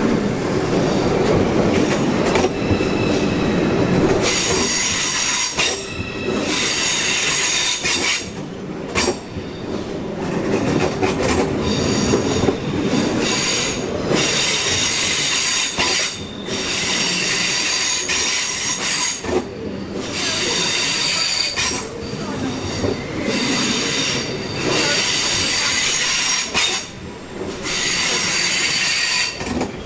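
A train moving through the station with a rumble of wheels. From a few seconds in, a high-pitched metallic squeal starts and stops in several stretches.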